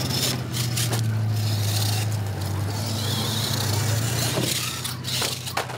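A scale RC monster truck driving hard over loose gravel, its tires scraping and throwing stones, with a few sharp clicks and a brighter gravel hiss about three seconds in. Under it all runs a steady low hum.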